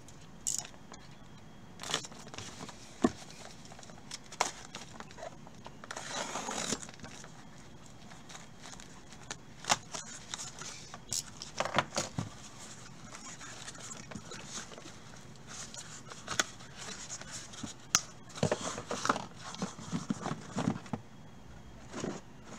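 A cardboard shipping case being opened and handled, with scattered scrapes, taps and knocks as the case is tipped and the shrink-wrapped trading-card hobby boxes slide out and are stacked. A longer rasping scrape comes about six seconds in.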